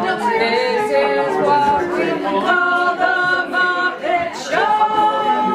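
Amateur voices singing unaccompanied, with long held notes.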